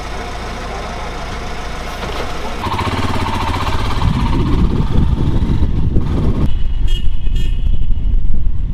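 Royal Enfield Himalayan's single-cylinder engine, steady at first, then louder and rougher from about three seconds in as the motorcycle is ridden, getting louder toward the end.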